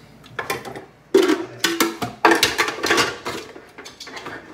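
Kitchenware clattering as things are handled: a run of knocks and clinks with brief ringing, starting about a second in and thinning out near the end.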